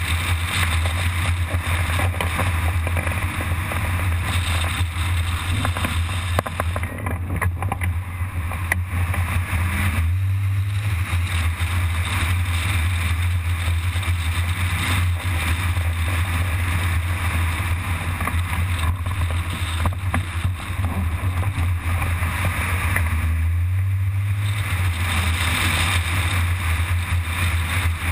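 Wind rushing over the microphone of a camera mounted on a hang glider's wing in flight: a steady low buffeting rumble with an airy hiss above it. The hiss thins briefly twice, about seven seconds in and again near twenty-four seconds.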